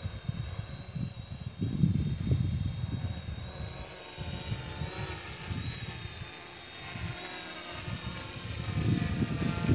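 F450 quadcopter drone's four brushless motors and propellers whining steadily in flight, over an uneven, gusty low rumble.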